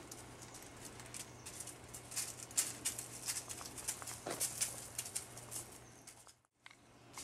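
Irregular light footsteps, with faint scuffs and ticks on a hard surface over a low steady hum. The sound drops out briefly about six and a half seconds in.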